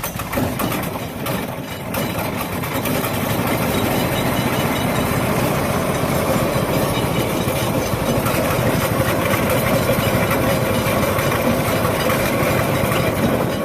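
Subaru Robin EX17 6 hp single-cylinder overhead-cam engine starting and running, with its carburetor newly refitted. It comes in suddenly, runs a little unevenly for the first couple of seconds, then settles into a steady run.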